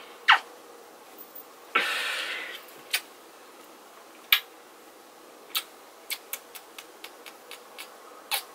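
Kisses on the face: a sharp lip smack about a third of a second in, a short breathy rush near two seconds, single smacks around three and four seconds, then a run of small quick kissing smacks, about three a second, through the last three seconds.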